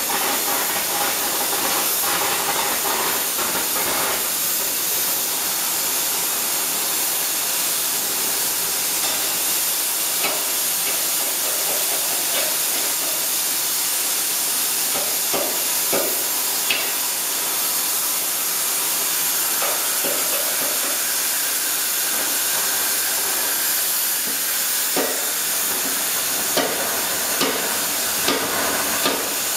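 Oxy-methane flame-cutting torch of a CNC gantry cutter hissing steadily as it cuts through 35 mm steel plate. A few sharp knocks come through, more of them near the end, as a steel bar is pushed against the plate at the cut.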